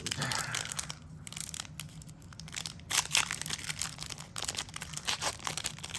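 Trading-card box packaging being handled: irregular crinkling and crackling of plastic wrap and cardboard, getting busier about halfway through.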